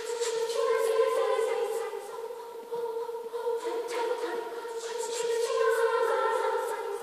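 Girls' youth choir singing a cappella, holding sustained chords in harmony. The sound swells louder about a second in, eases off, and builds again near the end.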